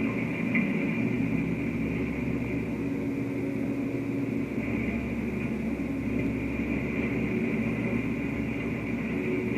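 Heavy machinery engine running steadily, a constant drone with a higher whine over it.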